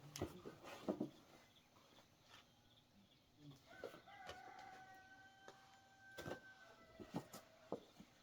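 A rooster crowing faintly once in the distance, a long level note of about three and a half seconds through the middle. Scattered faint clicks and knocks around it.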